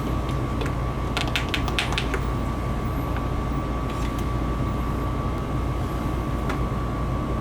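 Furnace condensate pump running with a steady hum and a thin, even whine as it pumps down a vinegar flush; it is pumping slowly because slime has built up inside it. A few light clicks come about a second in.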